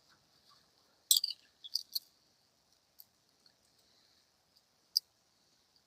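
Sharp clicks and taps of the chainsaw drill attachment's parts being handled and fitted together during assembly: a quick cluster about a second in, then single clicks near three and five seconds.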